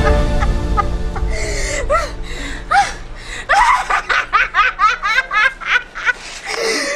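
A boy laughing: a few scattered chuckles that build into a fast run of ha-ha bursts, about four or five a second.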